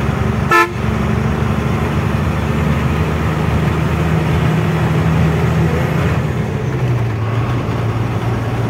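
Truck engine running with road noise, its low note dropping about six and a half seconds in. A short, loud beep sounds about half a second in.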